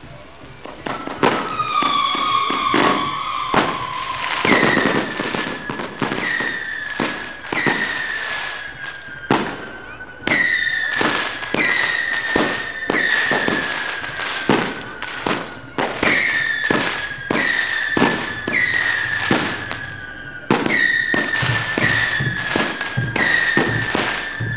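Firecrackers or fireworks going off again and again, a sharp bang roughly every second, with a high whistling tone that keeps starting up and sliding slowly down in pitch.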